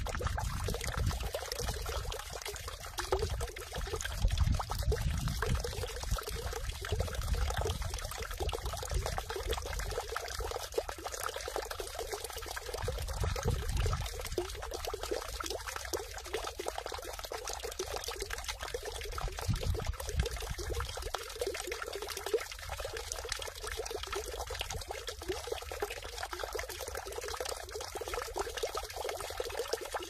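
Water falling continuously into a stone temple water basin (sugwak), splashing and trickling steadily into the water pooled in it.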